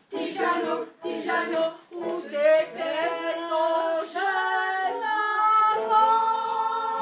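A group of voices singing unaccompanied: short sung phrases at first, then long held notes over the last three seconds.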